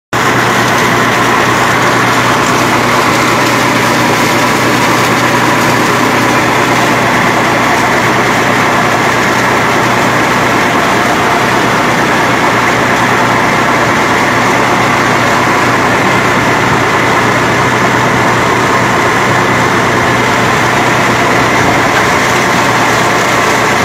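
Tractor engine running steadily, driving a rear-mounted mud-suction water pump through a pulley, with water gushing from the pump's outlet.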